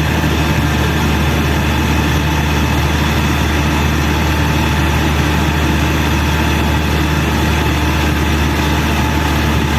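Caterpillar 120K2 motor grader's diesel engine running steadily at a constant speed, a deep even hum with no changes in pitch or load.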